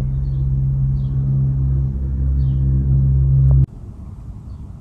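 A steady low mechanical hum, loud and even, that cuts off abruptly about three and a half seconds in, leaving quieter background noise.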